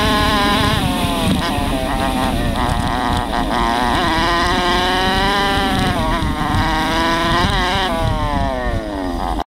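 Chinese 125cc four-stroke dirt bike engine running on the trail, its pitch rising and falling with the throttle, dropping in a long fall near the end as it slows.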